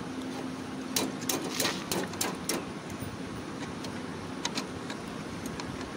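Metal clicks and clinks of e-rickshaw drum-brake shoes and their return springs being fitted by hand onto the backing plate: a quick run of about six clicks between one and two and a half seconds in, then a few more later.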